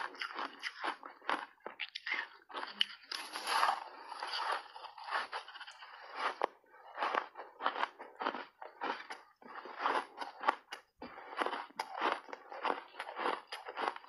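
Refrozen block ice coated in matcha and milk powder being bitten and chewed: an irregular run of sharp, crunchy bites and crackles, several a second.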